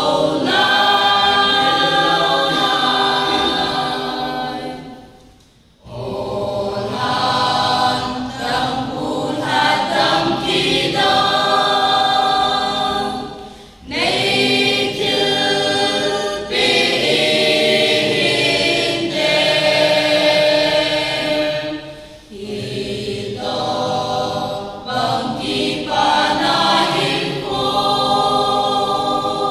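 Mixed choir of young men and women singing a hymn, in long phrases broken by short pauses for breath about every eight seconds.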